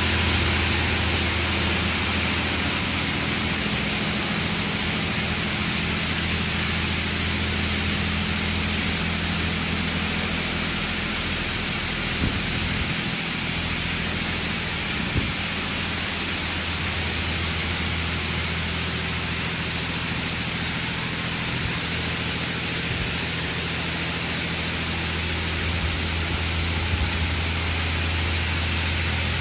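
Washworld Razor Edge touchless in-bay car wash at work: a steady hiss of water spraying onto the car over a steady low hum, with a couple of faint knocks partway through.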